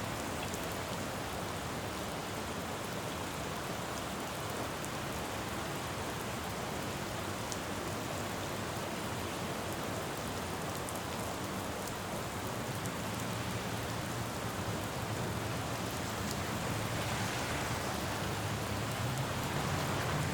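Steady rain falling on a road, with fine patter of drops on wet surfaces. In the last several seconds a vehicle's low engine hum and wet tyre hiss grow louder as it approaches.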